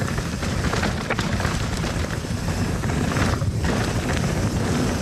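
Wind rushing over an action camera's microphone while a steel hardtail mountain bike rolls down a rocky trail, its tyres crunching over the ground and the bike rattling with many small knocks. The upper part of the rush eases briefly about three and a half seconds in.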